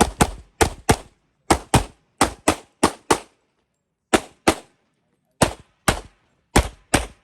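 A 2011-style competition pistol firing rapid pairs of shots at a run of targets during a practical shooting stage. About sixteen sharp reports come in quick doubles, each pair about a third of a second apart, with brief pauses between pairs and a longer gap of about a second halfway through.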